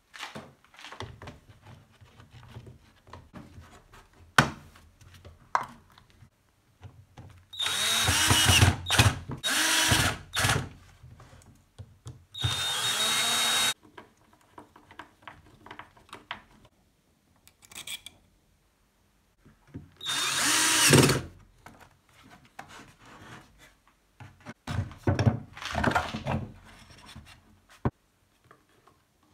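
Cordless drill/driver whirring in several short bursts as it drives screws into the angle grinder's housing, with clicks and knocks of parts being handled in between.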